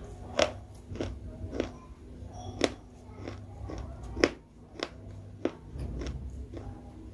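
Close-miked chewing of crunchy food: a series of sharp, irregular crunches and wet mouth clicks, the loudest about four seconds in.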